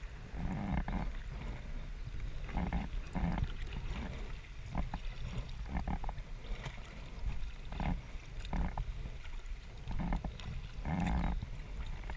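Kayak paddling on a river: irregular splashes and knocks from the paddle and hull, one every second or two, over a steady low rumble.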